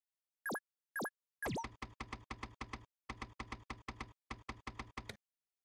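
Keyboard-typing sound effect: three quick runs of clicks with short pauses between them, after two short pops about half a second apart.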